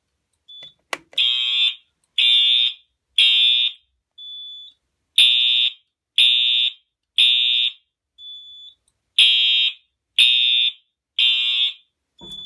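Fire alarm horn sounding the temporal-three (code 3) evacuation pattern: three half-second blasts about a second apart, a pause, then the group again, repeated. This is the alarm signal from the system after an alarm was set off at the key station. A sharp click comes about a second in, and a fainter short beep falls in each pause.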